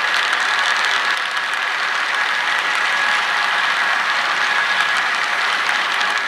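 Empty model coal hopper cars rolling past on model railroad track: a steady, dense clicking rattle of wheels and cars on the rails, with a faint thin high tone running through it.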